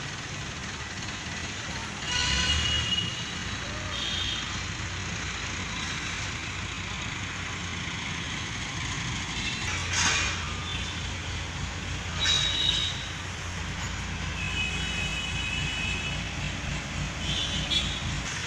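New Holland 7500 tractor's diesel engine running steadily, powering a tractor-mounted borewell drilling rig, with a low drone and a few short high-pitched tones and two brief louder bursts over it.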